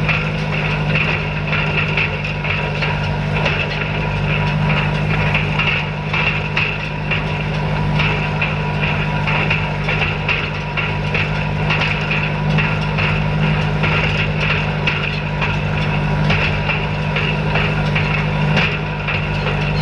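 Tractor engine running steadily while pulling a hay rake, with a constant rapid clatter of knocks over the engine note.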